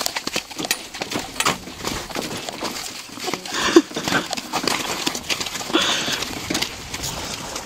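A Curly pony's hooves clip-clopping as she pulls a cart over a bumpy trail, with the cart and harness knocking and jiggling along. There is a brief squeak about four seconds in.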